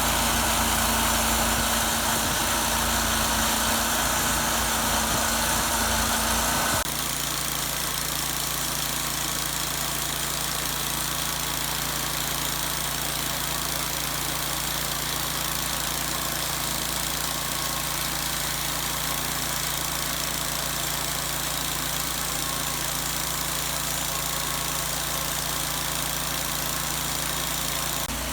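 An engine running steadily at low speed. About seven seconds in, the sound abruptly drops in level and changes tone, then carries on steadily.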